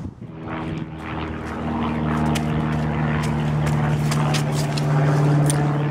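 A steady engine drone with an even pitch, growing louder over the first two seconds and then holding, with light clicks over it.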